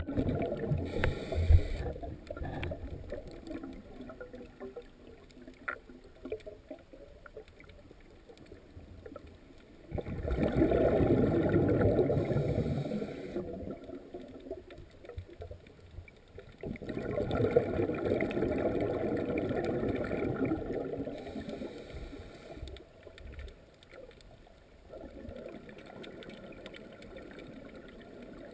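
Scuba diver breathing through a regulator underwater: two long bursts of exhaled bubbles gurgling past, about ten and seventeen seconds in, with a muffled, quieter hush of water between them.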